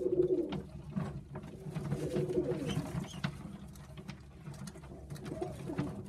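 Tippler pigeons cooing, several low coos in turn, with light clicks in between.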